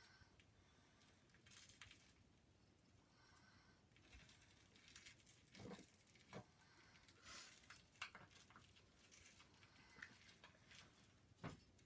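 Faint rustling and light taps from a cat pawing and biting a toy on top of a cardboard box, with a few sharper clicks from about halfway on.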